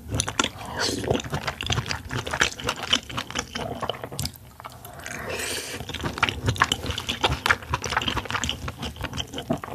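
Close-miked mouth sounds of a person eating a raw oyster: wet slurping and chewing with many quick, irregular wet clicks.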